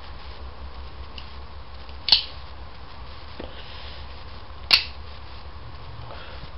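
Flick knife (switchblade) clicking sharply twice, about two and a half seconds apart, as the blade is snapped out and locked, with a fainter knock between, over a steady low hum.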